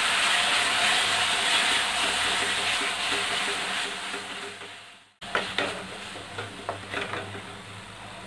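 Wet tamarind paste and chili powder sizzling in hot oil in a kadai as a wooden spatula stirs them through fried mint and coriander leaves. The sizzle fades over the first few seconds and breaks off briefly. It then goes on more quietly, with light knocks of the spatula against the pan.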